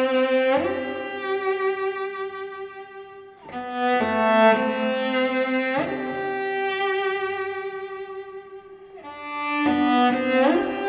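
Background music: a slow bowed-string melody, violin and cello, in long held notes that swell and fade, a new note sliding in about every three seconds.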